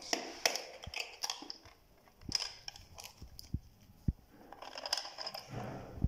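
Hard plastic parts of a weatherproof twin wall socket being handled by hand: a string of short, irregular clicks and knocks as the enclosure and its hinged cover are worked apart and opened.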